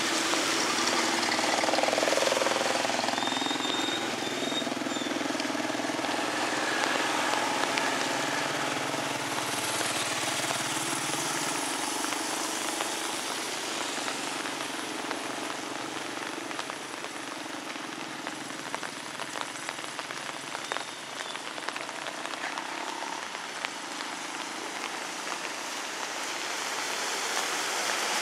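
Light rain falling on a wet street, with motorbikes and a tuk-tuk passing on the wet road. A vehicle draws closer near the end.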